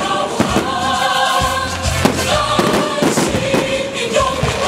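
Aerial fireworks shells bursting in an irregular run of sharp bangs, over loud music with singing.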